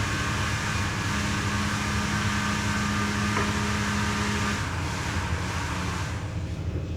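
Hot air rework gun blowing steadily with a hum, heating the phone board to work on the battery connector; it shuts off about six seconds in.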